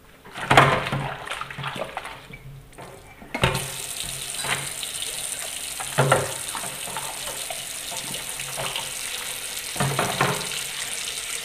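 Cups being washed by hand in a sink of soapy water: water sloshing and splashing, with several knocks of cups against each other or the sink. A steady hiss comes in suddenly about three and a half seconds in and holds on.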